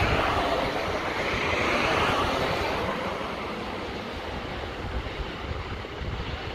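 Steady rushing noise with a low rumble underneath, starting abruptly at a cut and easing a little after about three seconds.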